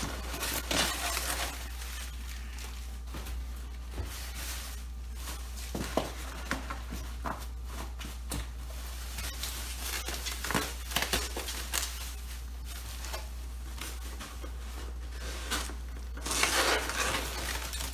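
Bubble wrap and plastic packaging crinkling and rustling in irregular bursts as it is pulled apart and handled, over a steady low electrical hum.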